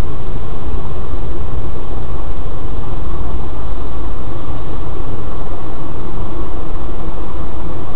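Steady, loud rumble of a moving car's engine and tyres heard inside the cabin through a dashcam microphone, with no distinct events.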